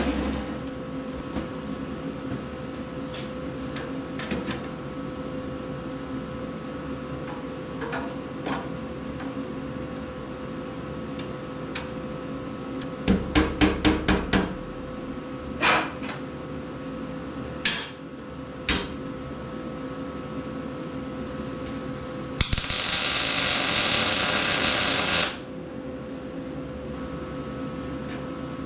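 Metal shop work: a quick run of about six knocks about halfway through, a few single clicks after it, then a hiss lasting about three seconds near the end, over a steady machine hum.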